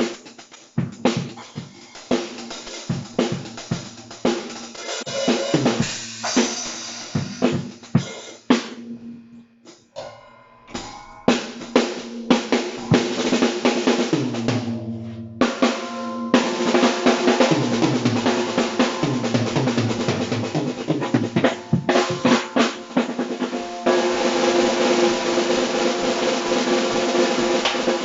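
Tama Imperialstar drum kit being played: single hits and short fills on the drums with a quieter, sparser moment near the middle, then a denser beat. In the last few seconds the cymbals ring continuously over the drums.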